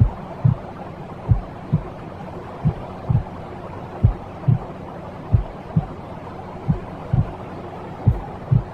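Slow heartbeat: paired low lub-dub thumps about every second and a third, over a steady hushing white-noise bed, the kind of womb-like sound used to soothe a baby to sleep.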